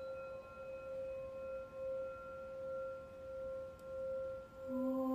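Singing bowl ringing a sustained note at about 528 Hz, its level swelling and fading roughly once a second. Near the end, a low sung note and more tones come in.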